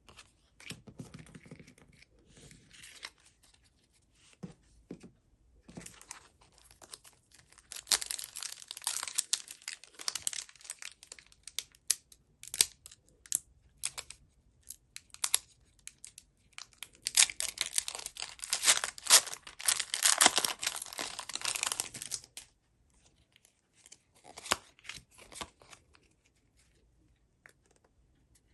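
Plastic and foil packaging being torn open and crinkled, typical of Pokémon card wrappers being opened by hand. There are two long spells of loud tearing and crackling, with quieter rustling and handling in between.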